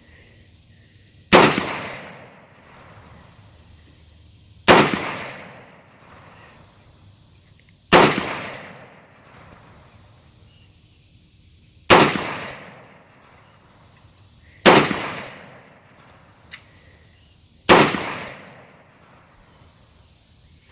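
Six single rifle shots from a semi-automatic AR-15 with a 6.5 Grendel 20-inch heavy-barrel upper, fired one at a time about three to four seconds apart, each shot followed by a trailing echo. Each round cycles the action without a stoppage.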